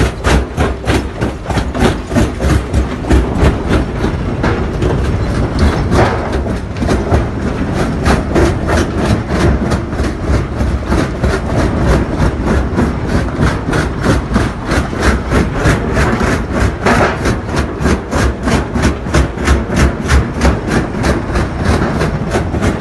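Small belt-driven jaw crusher running, its jaw and flywheels making a fast, even rhythm of knocks, with rocks grinding and cracking as they are fed between the jaws and crushed.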